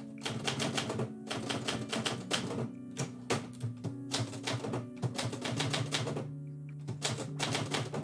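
Manual typewriter typed in quick runs of keystrokes with short pauses, and the carriage returned for a new line partway through. Instrumental music plays steadily underneath.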